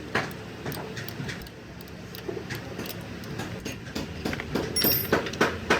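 Irregular mechanical clicks and metal knocks, coming faster and louder near the end, over a steady low hum.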